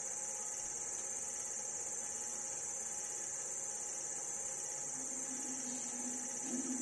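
Steady high-pitched hiss from a VHS tape playing through a TV's speakers over silent screens. A faint low steady tone comes in about five seconds in.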